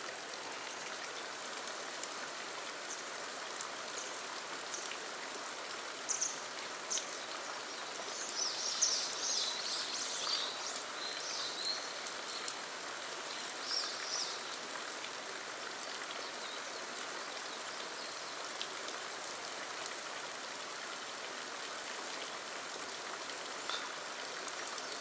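Steady rushing of flowing water. A few short high chirps come through around the middle.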